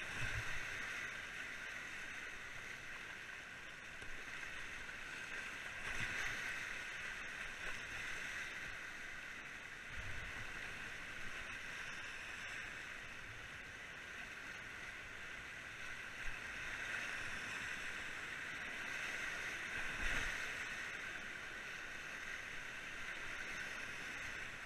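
Fast whitewater rushing steadily past a kayak running a rapid on a river in spate, with a few short low thumps and splashes of water hitting the boat, the loudest about 20 seconds in.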